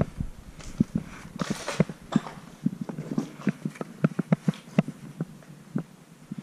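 Footsteps scuffing and crunching over rocks and debris, an irregular run of small knocks with a couple of brief rustles.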